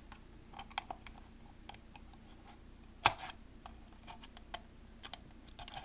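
Small screwdriver tip scraping and clicking against the thin aluminium wall of a cut soda can, as the torn edge is pried and pushed into place. Scattered faint ticks, with one sharper click about three seconds in.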